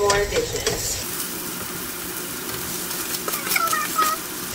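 Meatloaf-stuffed bell pepper rings sizzling steadily in a hot frying pan as they are set in, with a few light clicks of a spatula against the pan.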